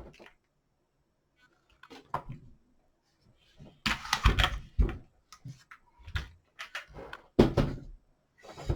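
Handling noise from a Kel-Tec PLR-16 pistol being moved about: scattered knocks and clunks, with louder bumps about four seconds and seven and a half seconds in.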